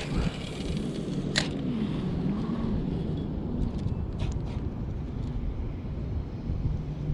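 Steady low rumble of wind buffeting the microphone, with a few sharp clicks: one about a second and a half in, and a pair a little past the middle.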